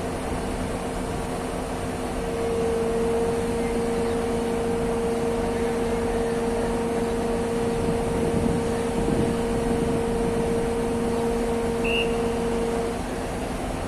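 Heavy crawler crane's engine and hoist running steadily with a steady whine, which grows stronger about two seconds in and drops away near the end, as the suspended load is lowered.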